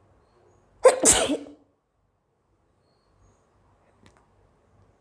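A woman's single sharp, explosive reflex burst of breath through nose and mouth, a cough-like expulsion in two quick parts about a second in, brought on by the irritation of sniffing black pepper powder.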